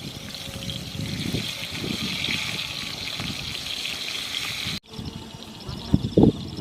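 An egg frying in hot oil in a pan, with a steady sizzle and crackle that cuts off abruptly a little before the 5-second mark. A few low knocks follow near the end.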